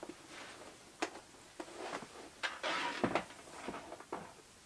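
Handbags being handled at a closet shelf: rustling with a few sharp clicks and light knocks, loudest around three seconds in.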